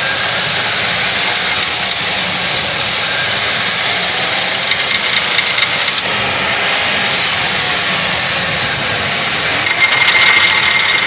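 Engine of a 2006 Lexus GS 300 all-wheel drive running steadily under light throttle, driving the spinning front wheels with the steering turned. The test is meant to bring out the popping of a bad front CV axle that is bound up.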